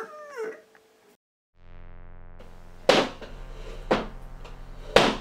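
Synthesizer music: a low sustained drone comes in about a second and a half in, with three sharp loud hits about a second apart.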